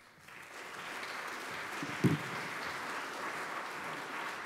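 Audience applauding, swelling over the first second and then holding steady, with a single short thump about two seconds in.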